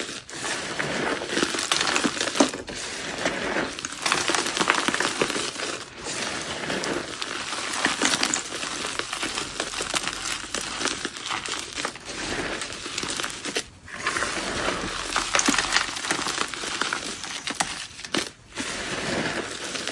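Bare hands squeezing and crumbling dry gym chalk mixed with Holi powder and confetti: a continuous crisp, crunching crackle of chunks breaking and powder grinding between the fingers, with a few brief pauses between handfuls.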